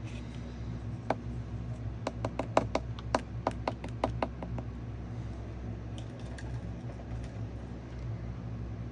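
A quick run of about a dozen light, sharp taps over a few seconds, then a few scattered fainter ones, over a steady low hum.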